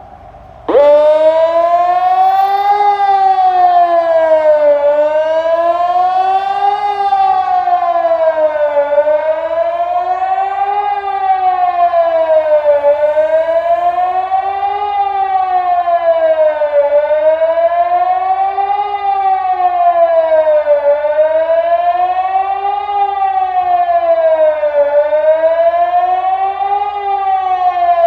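Ergatec electronic civil-defence siren sounding the Swiss general alarm signal at full power during the siren test. It comes on abruptly about a second in, then wails in a regular rising and falling tone, one rise and fall about every four seconds.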